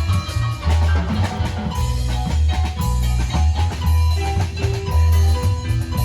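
Recorded music with a heavy pulsing bass, drums and a pitched melody, played loud through a PA system's speakers.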